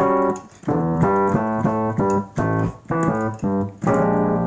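Casio Privia digital piano playing a funk phrase: a syncopated left-hand bass line under short right-hand chords, a B♭ chord resolving down a half step to A.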